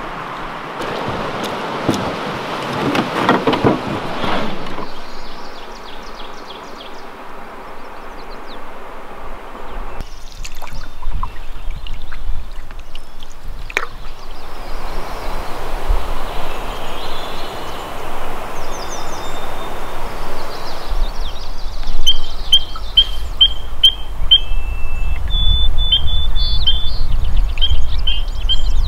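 Rushing river water for the first few seconds. Later a bird repeats a short, high chirp about twice a second over a low wind rumble on the microphone.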